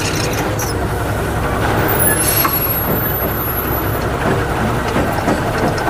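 Heavily loaded truck's diesel engine running, heard from inside the cab as the truck pulls away from a toll booth. Steady engine and road noise.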